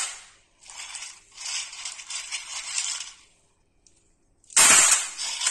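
Water-soaked stone chips clattering and clinking against each other and on steel as they are scooped by hand from a steel bowl of water and set on a steel tray, with water splashing. A run of small clinks, a short pause, then a louder clatter about four and a half seconds in.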